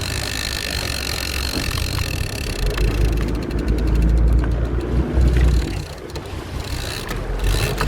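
Wind rumbling on the microphone over a boat's engine, with a steady high whine early on and a fast run of ticking from a fishing reel in the middle as line is fought in from a hooked tuna.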